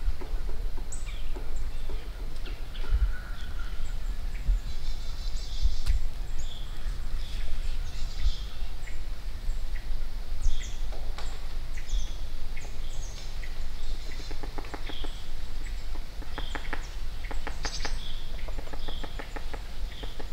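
Woodland birds calling: short high chirps throughout, and runs of quick rasping calls in the second half. A low wind rumble on the microphone sits underneath.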